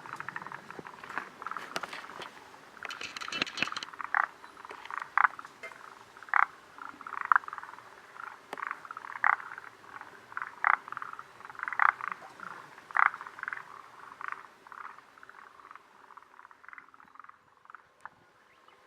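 A chorus of frogs, forest green tree frogs and Japanese mountain brown frogs, calling in short repeated croaking notes about once a second, loudest in the middle and thinning out near the end.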